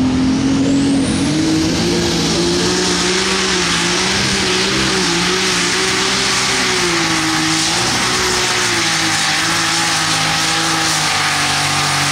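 Light super stock pulling tractor's turbocharged diesel engine running flat out under load while pulling the sled, its pitch holding steady with a slight waver. A high turbo whine rises over about the first second.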